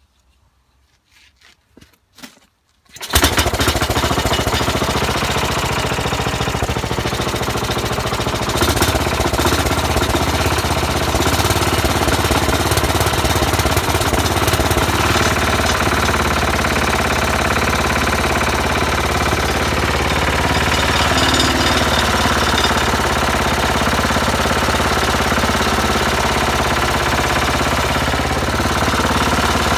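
Tecumseh HH120 single-cylinder engine of a 1968 Sears Suburban 12 garden tractor catching on a rope pull start about three seconds in, after a few short faint sounds, then running steadily with a rapid pulsing beat. It gets a little louder about eight and a half seconds in.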